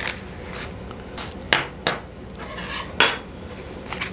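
Stainless-steel coffee grinder parts and a measuring scoop being handled in a foam-lined box: several light knocks and clicks, the sharpest a ringing metallic clink about three seconds in.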